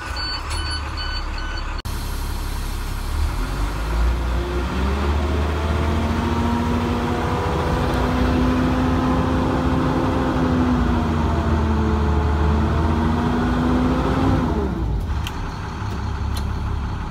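School bus's Navistar DT466-type diesel engine under a road test after a new charge air cooler was fitted, run against a sluggish-power complaint. Its pitch rises over a few seconds, holds steady, then falls away near the end. A row of short beeps sounds in the first two seconds.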